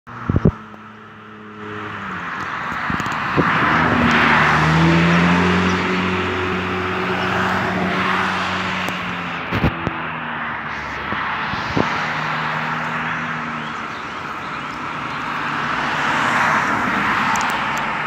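Chorus of periodical cicadas: a dense, steady droning hiss that swells and fades every few seconds. Underneath runs the low hum of a motor vehicle's engine, with a few sharp clicks.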